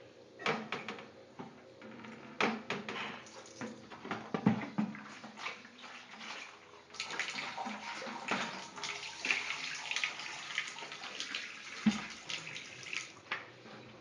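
LG Prime front-loading washing machine tumbling a load of clothes through water on its delicate cycle: irregular sloshing and splashing in the drum with soft knocks, heavier in the second half and stopping about a second before the end.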